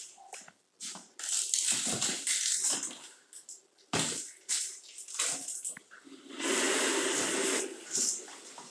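Cordless mini blind being handled and pulled down: scattered rustles and clicks, a sharp knock midway, then about a second of the slats clattering and sliding as the blind lowers.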